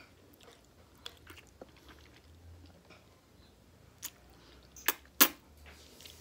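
Close-up chewing of a mouthful of spaghetti, with scattered short wet clicks. Two sharp, louder clicks come close together about five seconds in.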